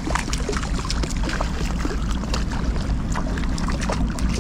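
River water running steadily, with many small sharp splashes at the surface as a hooked whitefish is brought in to be landed.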